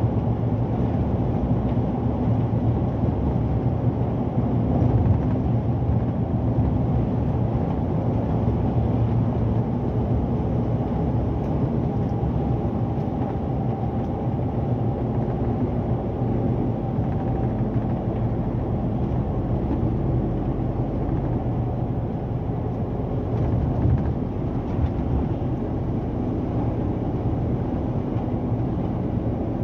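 Scania P 360 truck at cruising speed, heard from inside the cab: a steady low engine drone mixed with road and wind noise.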